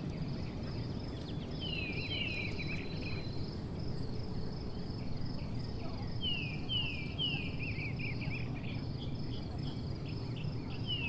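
Forest bird calling in short falling chirps, given in quick runs of two or three and repeated three times. Beneath them run a steady high insect drone and a low, even rumble.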